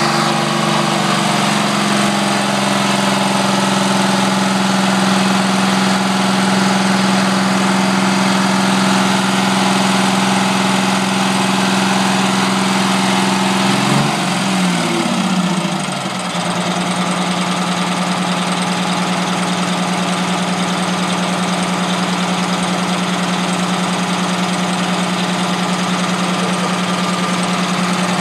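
A Detroit Diesel 6V92 two-stroke V6 diesel in a Flxible Metro transit bus runs steadily at raised speed. About halfway through, its speed falls away over a couple of seconds and settles into a steady, slightly lower running note.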